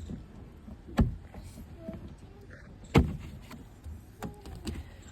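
Hyundai Santro door handle and lock parts being handled and fitted into the door: two sharp knocks about two seconds apart, with lighter clicks near the end.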